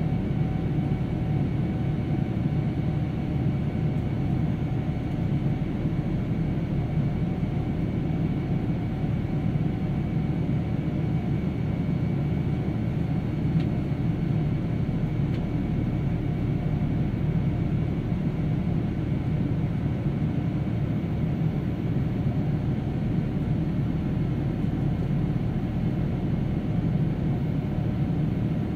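Steady cabin noise of a Boeing 787-9 in its climb after takeoff: a low, even rumble of the Rolls-Royce Trent 1000 turbofans and rushing air, heard from inside the cabin, with a few faint steady tones above it.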